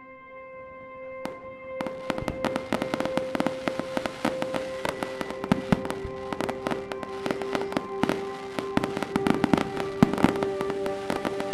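Fireworks display: a single bang about a second in, then a dense, rapid barrage of bangs and crackles, over music with long held notes.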